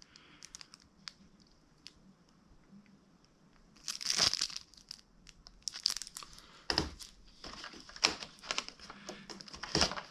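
Cardboard packaging of an advent calendar being torn open and plastic wrapping crinkling: mostly quiet at first, then a loud rip about four seconds in, more rips a couple of seconds later, and a run of crackles and clicks near the end.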